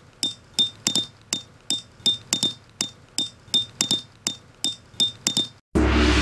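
A brass-headed peg hammer strikes a metal tent peg, driving it into gravelly ground: a quick run of about twenty metallic blows, roughly three a second, each with a bright ringing ping. The hammering stops near the end and music begins.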